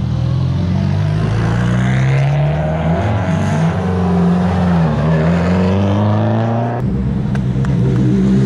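Rally cars driving slowly past at low revs, their engines making a steady drone. The revs dip and pick up again about five seconds in, and the sound changes abruptly about seven seconds in as another car takes over.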